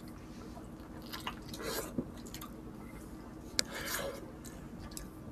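Close-up chewing of soft, creamy chicken and rice eaten by hand, with wet squishy mouth sounds and lip smacks. A single sharp click about three and a half seconds in.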